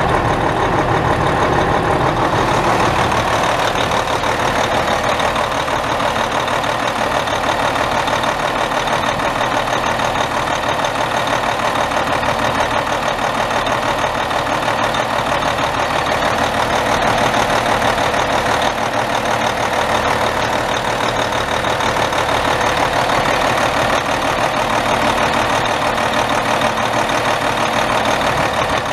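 Cummins M11 10.8-litre inline-six turbo diesel of a 1995 Freightliner FLD120 semi truck, running at a steady idle.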